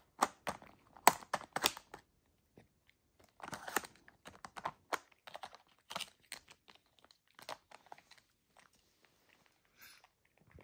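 Hard plastic tiles of a pet puzzle feeder clicking and clacking as a capuchin monkey slides and knocks them with his hands, in quick clusters of sharp clicks, busiest in the first two seconds and thinning out near the end.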